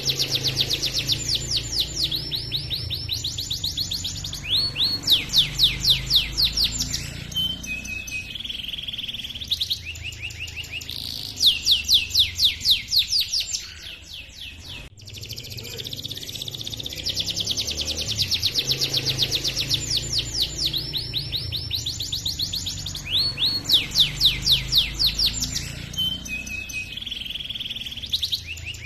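Domestic canary singing a long, continuous song of rapid trills and chirps, with rolling trills of quick repeated notes. The same song sequence repeats about halfway through, as a looped recording.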